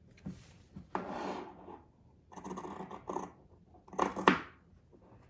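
Pinking shears snipping through cotton fabric, with the cloth rustling as it is moved, while a square is cut out of a tote bag's bottom corner. There are three bursts of cutting and rustling, the loudest about four seconds in.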